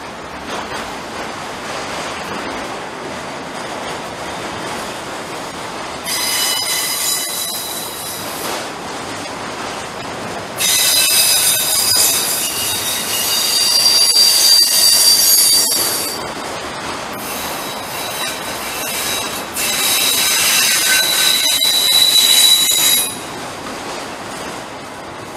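Union Pacific intermodal freight train rolling past over a steady rumble, its wheels squealing in three high-pitched bouts that start and stop abruptly: about six seconds in, from about eleven to sixteen seconds, and from about twenty to twenty-three seconds.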